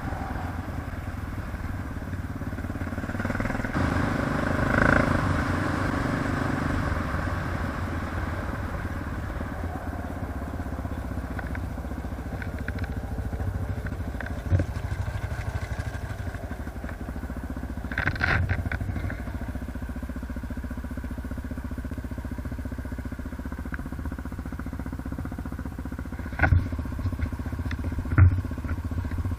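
ATV engine running steadily, with a brief rise about five seconds in. A few sharp knocks come through in the second half, the loudest two near the end.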